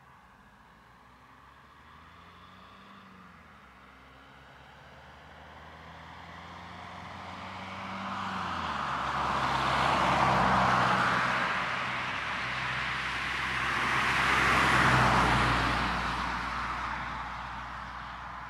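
Road traffic passing: car engine and tyre noise swelling out of quiet to a peak about ten seconds in, dipping, rising to a second peak about fifteen seconds in, then fading away.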